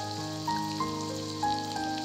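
Background music with held notes that change every half second or so, over a faint sizzle of minced garlic frying in oil in a pan.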